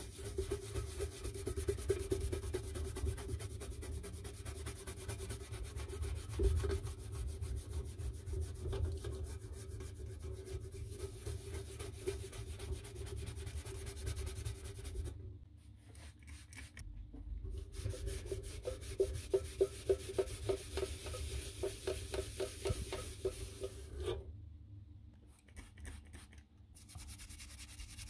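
Small stiff-bristled brush scrubbed fast back and forth over rusty, grimy sheet metal, cleaning off rust and dirt. The scrubbing stops briefly twice.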